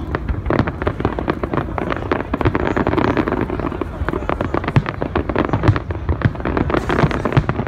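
Aerial fireworks shells bursting in quick succession: a dense, unbroken run of sharp bangs.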